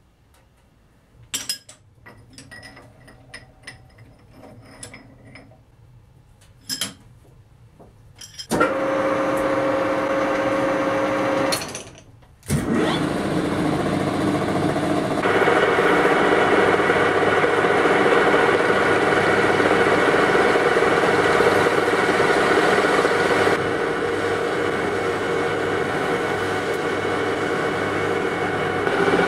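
A few sharp clicks and taps of small metal parts and a vernier caliper being handled. About eight seconds in, a metal lathe motor starts and runs with a steady hum. It stops for about a second, then starts again and runs on, turning a small steel part.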